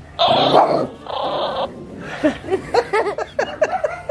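Small dog growling and barking hard at an unfamiliar toy, two rough outbursts in the first second and a half, then a quick run of short yips and whines that rise and fall in pitch.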